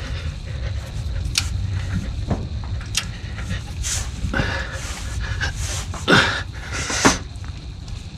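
Ratchet and torque wrench working a rear brake caliper bracket bolt on a 2008 Ford F250: several separate metallic clicks and clacks, the loudest two near the end, over steady low background noise.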